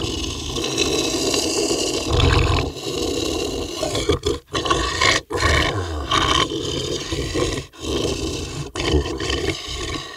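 Monster growl sound effect: a long, rough, roaring growl that starts abruptly and breaks off briefly a few times.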